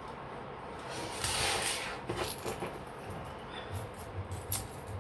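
Small handling noises as packaging and small jewellery pieces are moved about: a short rustle a little over a second in, then a scatter of light clicks and soft taps.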